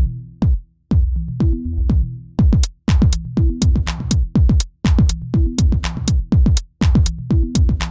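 Electronic dance music with a drum-machine beat: deep kick drums that drop in pitch, crisp hits and a pulsing bass line, the drums growing busier about two and a half seconds in.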